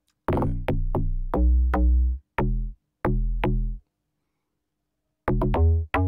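Log drum bass line playing solo: a run of short, punchy pitched bass notes, each with a sharp attack and a quick decay, passed through a clipper taking about 2 dB off the peaks. The notes stop for over a second about halfway through, then return as a quick cluster near the end.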